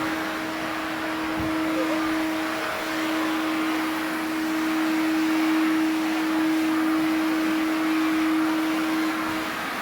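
Household vacuum cleaner running steadily: a constant motor hum over a rushing of air, getting a little louder midway through.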